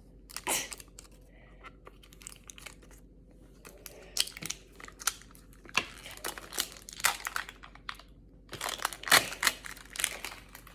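Plastic packaging being handled and torn open by hand: irregular crinkling and sharp crackles, busier in the second half.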